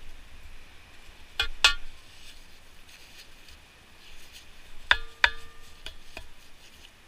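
Two pairs of sharp metallic knocks from a long-handled metal sand scoop working sand and stones in a dig hole. The first pair comes about a second and a half in, the second near five seconds, and after the second pair a short ringing tone lingers.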